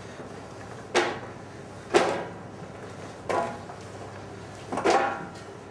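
Kitchen items being knocked and set down on a worktop: four separate sharp knocks with a brief ring, about a second or so apart.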